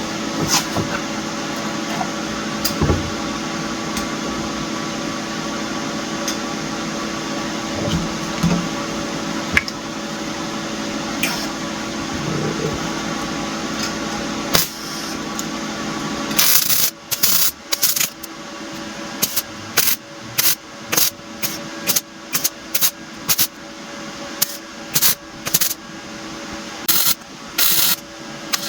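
A steady machine hum with a few steady tones, with occasional clicks, that cuts off about 16 seconds in. Then repeated hand strokes scraping across the steel weld, about one and a half strokes a second.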